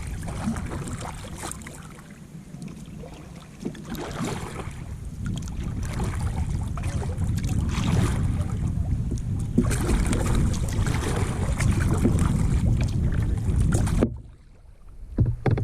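Wind rumbling on a small camera's microphone, with water splashing from a kayak being paddled. The noise drops away suddenly about a second before the end.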